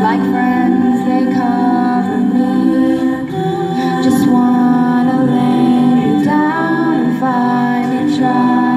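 Mixed a cappella group singing through microphones and PA speakers: a female lead voice over sustained backing vocal harmonies.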